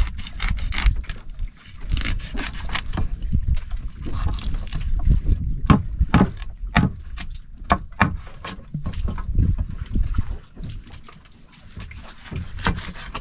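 Irregular knocks and clattering, some sharp, over a steady low rumble of wind and water noise.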